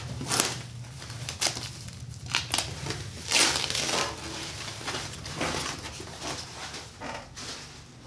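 Packaging wrapping crinkling and rustling in irregular handfuls as a thin polypropylene 3D-printer bed sheet is unwrapped and pulled out. The loudest rustle comes about three and a half seconds in, and the crinkling trails off toward the end.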